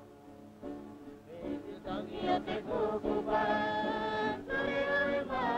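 A group of Cook Islanders singing a traditional song of the great voyages. It starts quietly, and the voices swell about two seconds in and hold long notes.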